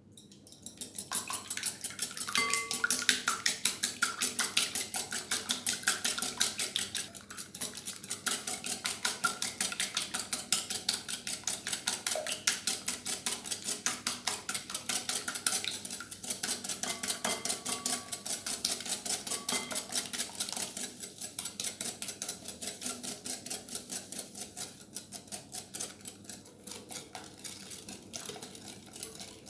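Wire whisk beating raw eggs in a glass bowl, the wires clicking against the glass in a quick, steady rhythm. The strokes start about a second in and grow softer in the second half.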